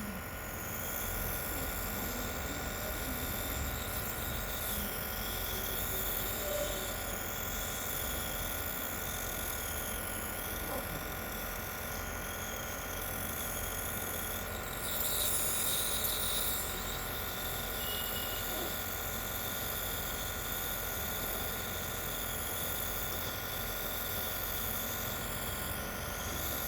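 A steady electric buzz from a small motor, with a brief louder hiss about fifteen seconds in.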